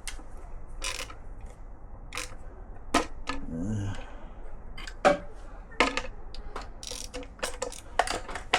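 Hand tools working a stubborn bolt on a BMW motorcycle engine: about ten sharp metallic clicks and knocks at uneven intervals as the wrench is repositioned and pulled.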